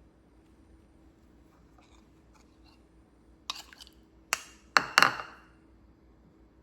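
Dishes clinking: a few faint taps, then four sharp clinks over about a second and a half, the last the loudest with a brief ring.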